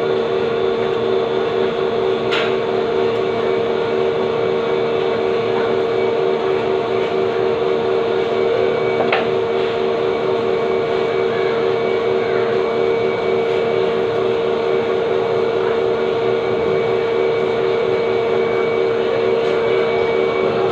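Steady, loud machine drone with a constant hum and a fast pulsing tone, and a few faint clicks.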